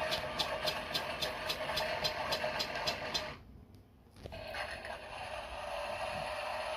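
Toy washing machine's small electric motor running with a regular click about three times a second. About three seconds in it stops, then after a second's pause starts again, running steadily without the clicks.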